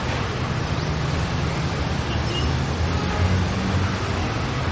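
Steady low rumble of background road traffic, with no clear bird call standing out.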